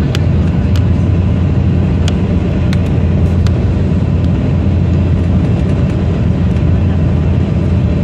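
Steady low drone of an airliner cabin in flight: engine and airflow noise at an even level, with a few faint clicks.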